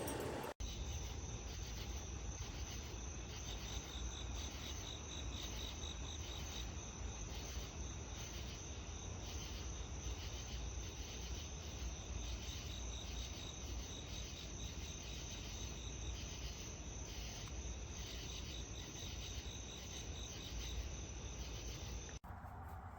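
Crickets chirping: a steady high trill with a pulsing chirp just beneath it, repeating evenly, over a low rumble.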